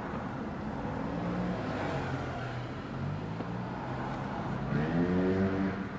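Vehicle motor hum in slow town traffic, heard from inside a car: the pitch sinks as the car slows almost to a stop, then rises near the end as it pulls away again.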